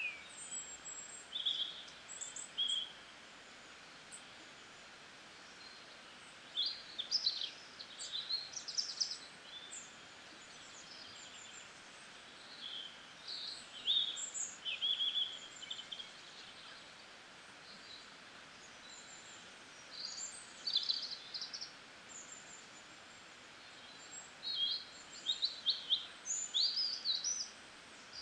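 Small birds chirping and twittering in short bursts of song every few seconds over a steady faint hiss.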